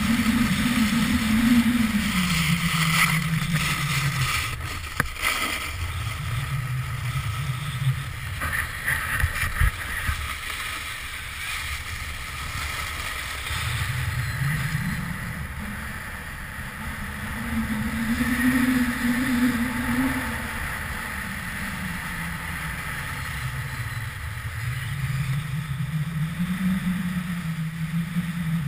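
Snowboard sliding and scraping over packed snow on a run, with wind rushing past the camera, under a low hum that rises and falls slowly every few seconds.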